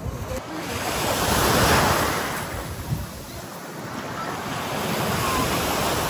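Sea waves washing onto a beach, swelling twice about three seconds apart, with wind buffeting the microphone.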